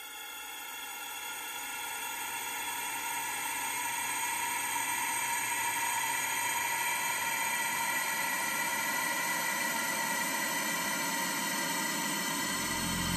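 Electronic ambient drone: a dense, hissing wash of noise layered with many sustained high tones, swelling up over the first few seconds and then holding steady. Near the end a deep bass comes in.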